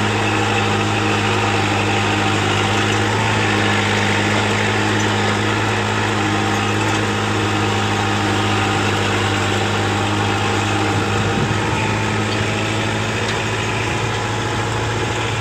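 Farm tractor's diesel engine running steadily as the tractor drives across a field, heard close up from the driver's seat, with an even, unchanging drone.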